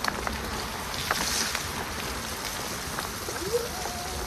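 Steady rushing of bicycle tyres on a wet path, with a few scattered ticks. About three and a half seconds in, the e-bike's electric motor whir rises in pitch and settles into a steady whine.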